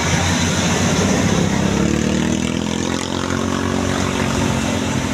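Tour bus engine running and revving up as the bus pulls away, its pitch rising from about a second and a half in and then holding steady.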